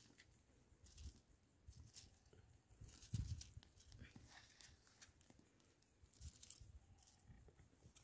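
Near silence with faint, scattered scratches and clicks of a matchbox being handled and matches struck over a heap of dry twigs, the loudest scratch about three seconds in.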